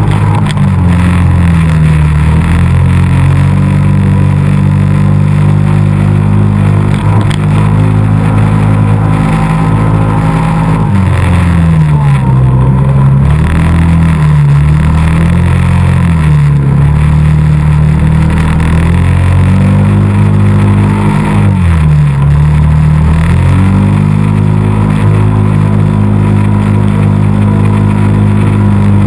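ATV engine running loud and close as it is ridden through snow, its pitch dropping and climbing again several times as the throttle is eased off and opened.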